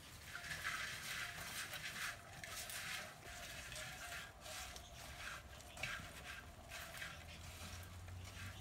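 Hand mixing chopped okra in a clay pot: irregular soft rustling and squishing as the pieces are tossed.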